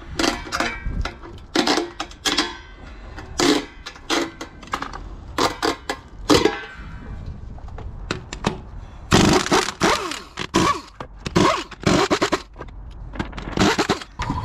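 Metal hand tools knocking, clinking and scraping on car parts in irregular strokes, busiest about nine to twelve seconds in.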